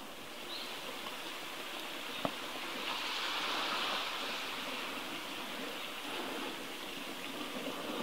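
Steady rush of flowing stream water, swelling a little about three seconds in, with one short click a couple of seconds in.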